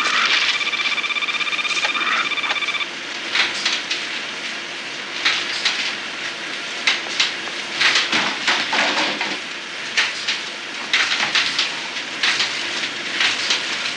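Xerox 9400 duplicator sounding a steady buzzing alarm tone that stops about three seconds in, while it runs out of control. Sheets of paper rustle and flutter continuously as they shoot out and scatter, with many sharp flicks and slaps of paper.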